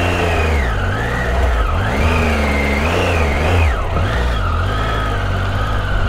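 Triumph Tiger motorcycle engine pulling away and accelerating, its pitch rising and falling several times through the gears, then settling to a steady pitch for the last second or so.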